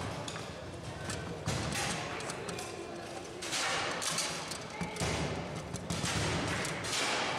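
Foosball rally on a Bonzini table: irregular sharp clacks and thuds as the ball is struck and passed by the figures, with rods knocking and sliding, and a few busier flurries of rapid knocks.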